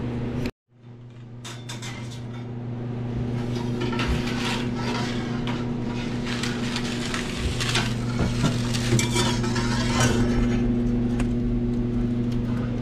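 A metal pizza peel scraping and clinking against a steel sheet pan as a pan of mushrooms is slid into a wood-fired oven, with the mushrooms sizzling. A fan hums steadily underneath.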